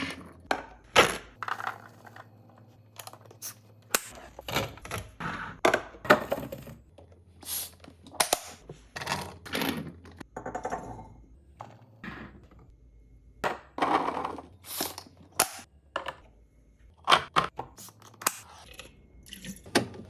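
Groceries and containers being set down and arranged on fridge shelves: a string of irregular knocks, clinks and taps, with a few short scrapes or rustles between them.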